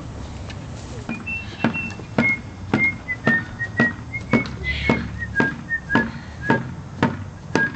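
A person whistling a slow tune in held notes that step down in pitch, over sharp, even taps about twice a second.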